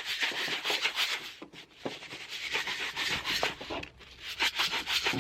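A gritty mixture of gunpowder and fertilizer being mixed in a container: a scratchy rubbing and rattling of granules, coming in runs with short pauses.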